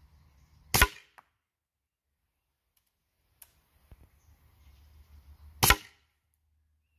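Two shots from an Umarex T4E HDS 68 CO2 pistol, about five seconds apart, each a single sharp crack.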